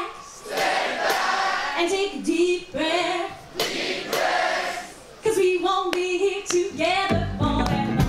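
A concert crowd sings back in chorus, alternating with a woman's solo sung phrases in call-and-response. About seven seconds in, the band's drums and bass come in.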